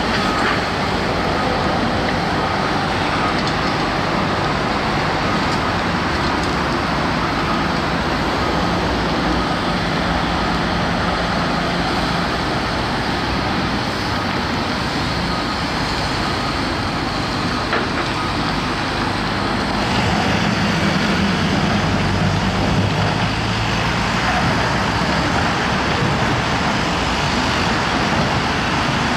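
Heavy diesel machinery, an excavator and a dump truck, running steadily, growing a little louder about twenty seconds in.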